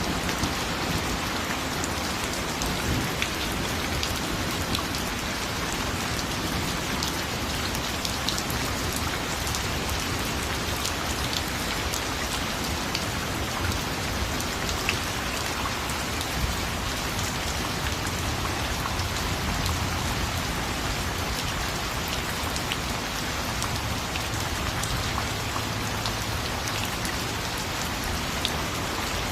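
Steady rain: a dense, even hiss with scattered sharp ticks of individual drops striking a surface.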